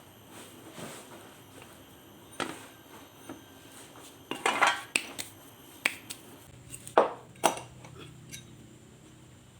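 Metal parts clinking and knocking as they are handled: a string of sharp knocks with a short ring, the loudest about four and a half seconds and seven seconds in.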